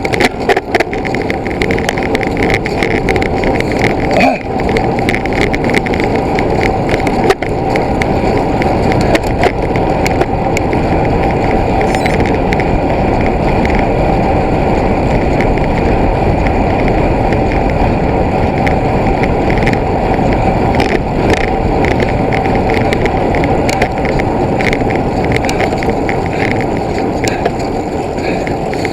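Steady, loud rolling and rumbling noise of a ride over a rough trail, with a few sharp knocks from bumps.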